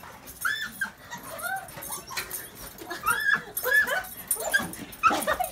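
Beagle whining and yipping in about six short, high, rising-and-falling cries: an excited greeting of its returned owner.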